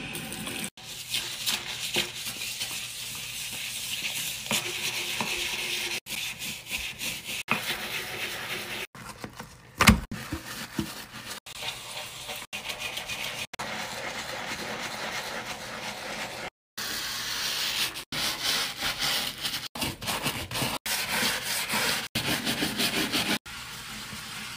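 A scrubbing brush and pad rubbing hard over a sink and wall tiles dusted with powdered cleanser: a fast, gritty back-and-forth scrubbing hiss, cut off short again and again, with one sharp knock about ten seconds in.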